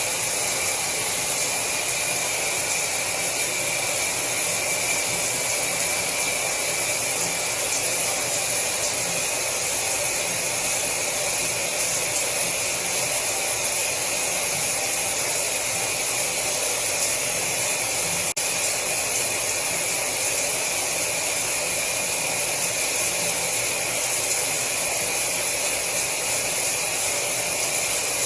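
Shower water running: a steady, unbroken hiss of spray, bright and high-pitched.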